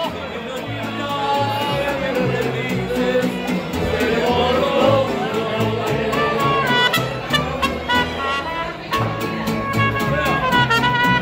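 Live mariachi music: violin melody over a strummed vihuela, with steady bass notes beneath.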